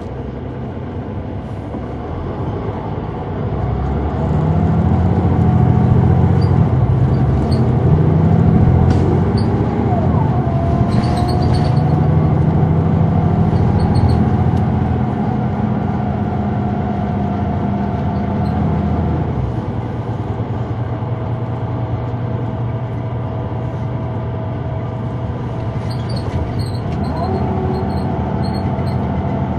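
Inside the cabin of a Neoplan AN459 articulated bus, its Caterpillar C9 ACERT diesel and ZF Ecomat automatic pulling away with a rising engine note and whine that climbs in steps as the gearbox shifts up. It holds high for several seconds, then eases off to a lower steady drone and picks up again near the end.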